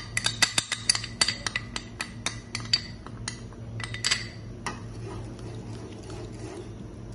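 Rapid clinks, several a second, as custard powder is tapped out of a glass bowl into a non-stick frying pan of boiled milk. After about five seconds they stop, and a steel spoon stirs quietly in the milk over a low steady hum.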